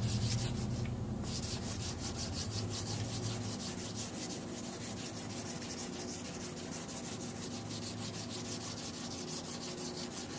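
600-grit wet sandpaper rubbed by hand in quick back-and-forth strokes across a drip in a car's clear coat, about four to five strokes a second. A low hum runs underneath.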